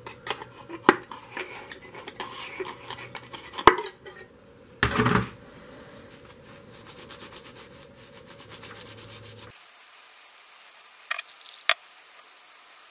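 Metal-on-metal scraping, clicking and rubbing as a metal pick works at the hub of a rusty metal disc and the hub is twisted by hand. There is a short loud scrape about five seconds in, then a run of quick even scratching strokes, and two sharp clicks near the end.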